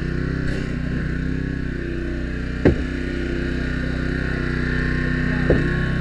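Small engine of a hydraulic rescue-tool power unit running steadily, with two sharp knocks of metal work, one about three seconds in and one near the end.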